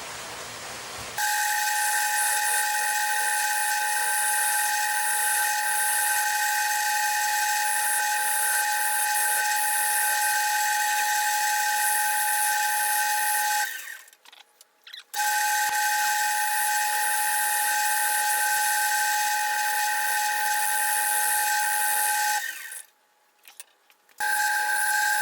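Wood lathe running, a steady high whine with hiss from cutting the spinning wood lid blank. It comes in loudly about a second in and cuts out abruptly twice for a second or so before resuming.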